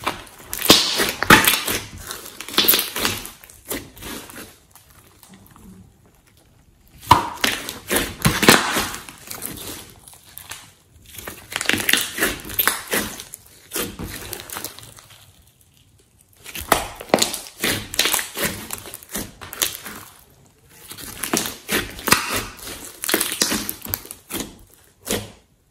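Hands squishing, stretching and pressing a lump of thick slime, making wet crackling and popping squelches. The sound comes in five stretches of a few seconds each with short pauses between, and cuts off at the end.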